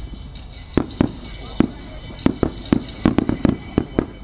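Aerial firework shells bursting, about a dozen sharp bangs in an irregular quick series. Music plays from loudspeakers underneath.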